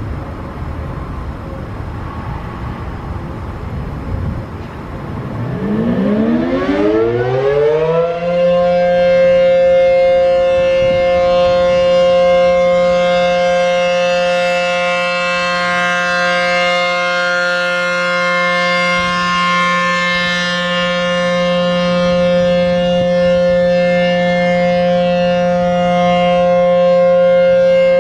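ACA P-15 outdoor warning siren winding up about five seconds in, its pitch rising for a few seconds until it settles into the steady alert tone, held loud and unchanging. Road traffic noise is heard before the wind-up.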